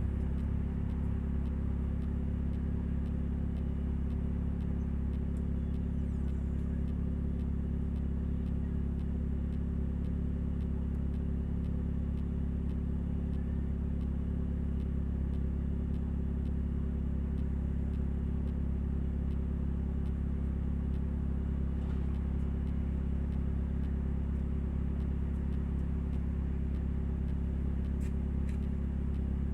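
2000 Nissan Altima's 2.4-litre four-cylinder engine running with a leaking exhaust, giving a steady low drone that does not change: the noise of an exhaust leak.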